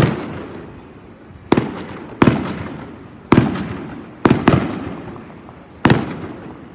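Aerial fireworks shells bursting: seven loud bangs at uneven intervals, each fading out over about a second, with two coming in quick succession about four seconds in.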